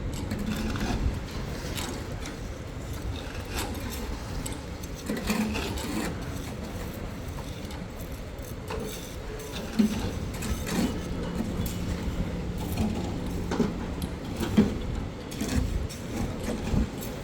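Construction site work noise: irregular knocks and metal clinks over a steady low rumble, with a short steady machine hum in the middle.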